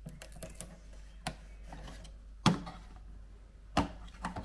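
Hard plastic parts of a Click & Grow smart garden clicking and knocking as they are handled and fitted together: a quick run of light clicks at first, then a few single sharper knocks, the loudest about halfway through.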